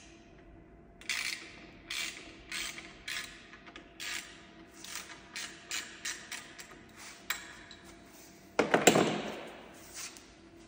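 Ratchet wrench clicking in short repeated strokes, about one to two a second, as a bolt on a Catto ground-adjustable propeller hub is undone. About nine seconds in comes a louder, longer metallic scrape and rattle.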